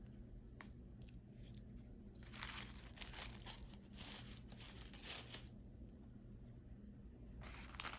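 Faint tearing and crinkling of packaging being unwrapped by hand, in two spells of rustling bursts, the first starting about two seconds in and the second near the end.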